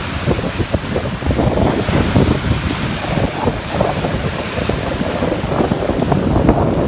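Caspian Sea waves washing, with a swell of surf hiss a couple of seconds in, under strong wind buffeting the microphone.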